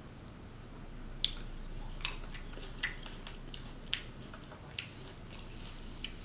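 Close-miked chewing: a person eating, with a string of sharp wet mouth clicks and smacks between about one and five seconds in.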